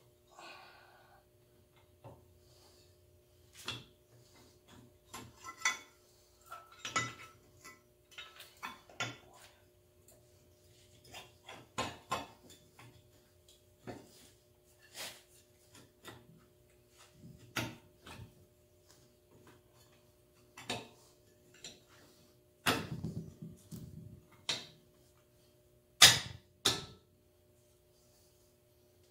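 Scattered metal clinks, ticks and knocks of a wrench and parts at the front steering knuckle of a John Deere 4720 compact tractor during reassembly, with two louder clanks near the end.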